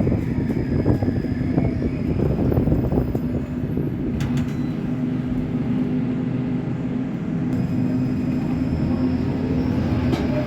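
Scania K270UB bus's diesel engine running with a steady hum and rough low rumble. Near the end a whine rises steadily in pitch as the engine speeds up.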